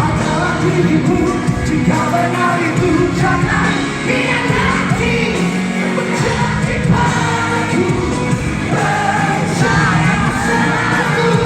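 A live band playing with a singer's lead vocal over it, the loud, full sound of a concert hall performance.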